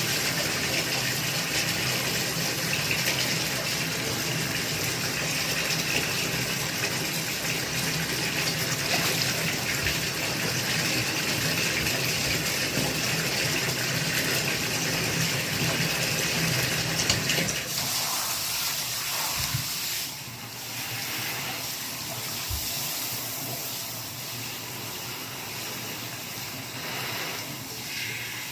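Water running steadily. After about eighteen seconds the fuller sound thins out and the level drops, leaving a lighter, quieter hiss.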